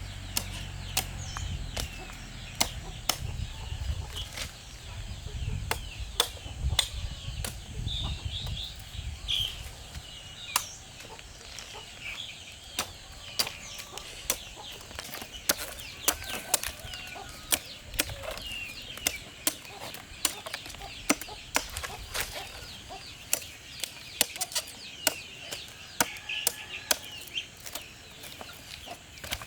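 Chickens clucking and chirping, over many sharp, irregular knocks or taps. A low rumble runs under the first dozen seconds.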